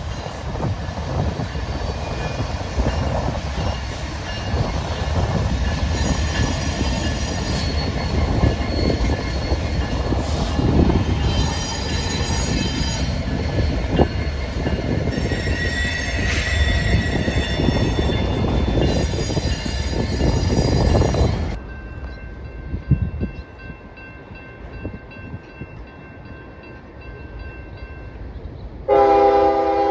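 Train passing close by: a steady rumble of wheels on rail with high, intermittent wheel squeal. About 21 seconds in the sound cuts suddenly to a quieter rumble, and near the end a train horn starts sounding, loud and steady.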